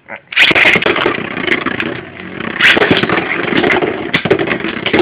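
Two metal Beyblade spinning tops launched into a clear plastic stadium. They whir and scrape against the plastic floor and clash against each other, with many sharp clicks.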